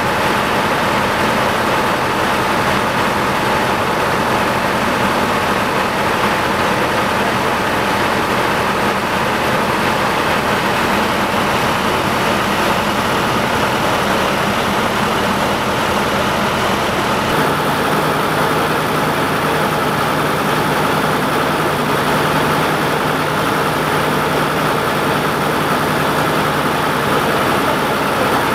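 Heavy diesel engine idling with a steady hum and even noise. The hum drops to a lower pitch at a cut about two-thirds of the way in.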